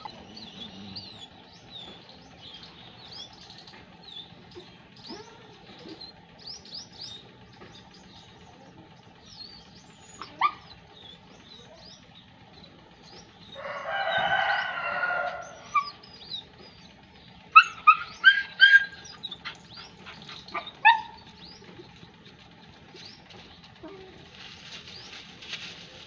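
German shepherd puppy barking: a quick run of about five sharp barks past the middle, a few single barks either side, and a longer, rougher sound of about two seconds before the run. Small birds chirp throughout.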